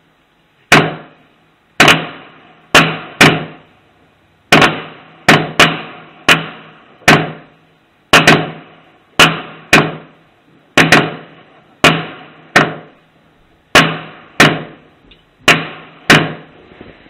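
Fireworks going off in quick succession: about twenty sharp bangs, one every half second to a second, each with a short echoing tail.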